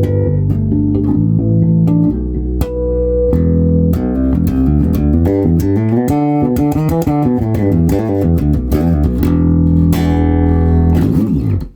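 Solo electric bass, a Fender American Deluxe P-Bass played on its front pickup with the mid-range up. It plays held notes, then a fast run of changing notes and more held notes, and ends with a slide down the neck that is cut off short.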